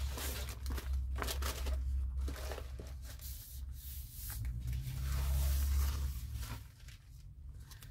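Paper rustling and crinkling as thin printed tissue sheets and journal pages are handled and turned over, in irregular bursts, with a low steady hum underneath.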